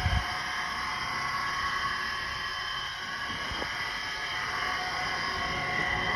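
The bad alternator of a 2014 Chevy Sonic whining steadily with the engine running: several high, steady tones over a low rumble. A short low thump comes right at the start.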